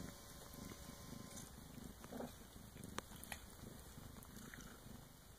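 Faint low purring from a Bengal mother cat nursing her kittens, with one sharp click about three seconds in.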